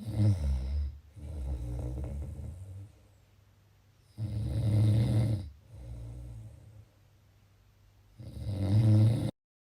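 A person snoring: three low snores about four seconds apart, the first two each followed by a softer breath. The last snore is cut off abruptly into dead silence near the end.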